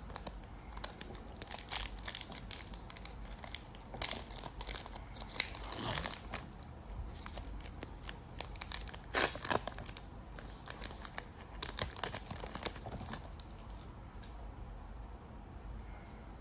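A foil trading-card pack wrapper being torn and crinkled, in several bunches of crackling with pauses between them. It goes quieter for the last few seconds.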